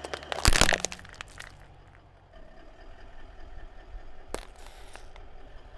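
Car tyre rolling over soft squishy balls, crushing them in one loud burst of cracking and crunching about half a second in, with a few smaller cracks after it. A single sharp crack comes about four seconds later as the tyre presses on a plastic tube.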